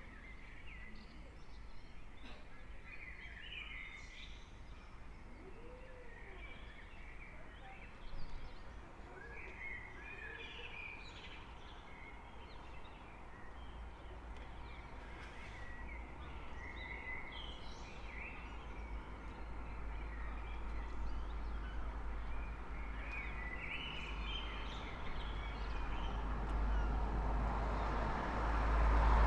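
Small birds singing and chirping over a low rumble of street noise. Over the last several seconds the rumble swells steadily as a vehicle approaches.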